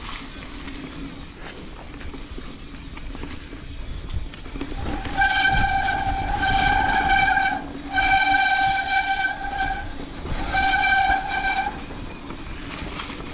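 Mountain bike rear hub buzzing as the rider coasts downhill: a high, steady buzz in three stretches, each cut off when he pedals, over the rumble of tyres on the trail.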